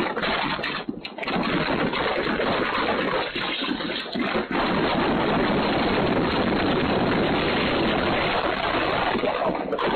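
Strong gusty wind rushing and buffeting the microphone, a loud continuous noise that dips briefly a few times in the first half.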